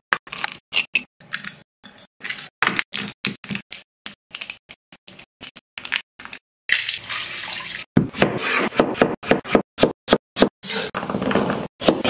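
Close-up kitchen prep sounds: a long run of sharp clicks and cracks as a raw crab's shell and legs are broken apart and cleaned by hand, with a brief hiss of running water a little past the middle.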